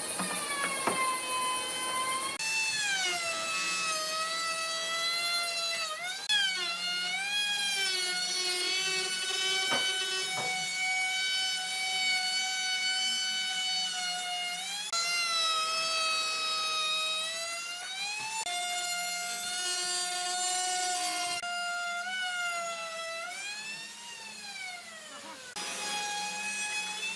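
Electric power tool motor whining at high speed, its pitch dipping and climbing back over a few seconds at a time as it takes and sheds load cutting wood. The sound changes abruptly a few times.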